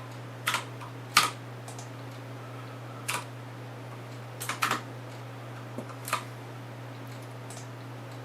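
Scattered computer keystrokes, about half a dozen sharp clicks spread over several seconds, some in quick pairs, the loudest about a second in, over a steady low hum.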